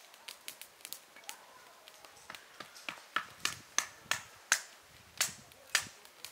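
A series of sharp cracks or snaps. Faint ticks at first, then from about three seconds in they get much louder and come about two or three a second.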